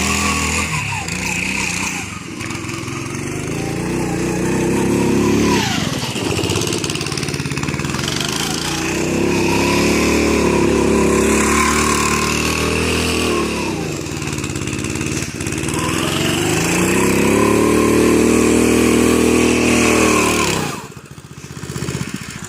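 An off-road go-kart's small engine revving up and easing off in repeated long waves as it is driven hard, with the revs dropping away sharply near the end.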